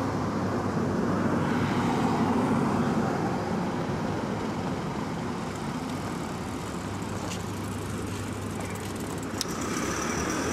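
City road traffic: a steady rumble of car and truck engines and tyres, with a brief sharp click about nine seconds in.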